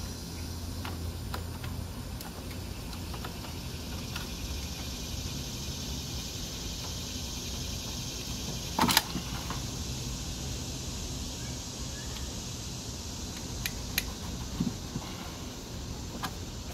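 Hands working spark plug wire boots loose at the back of a minivan's V6 engine, which is not running: scattered small clicks and rubbing over a steady background hiss. One louder click comes about nine seconds in, and a few more come near the end.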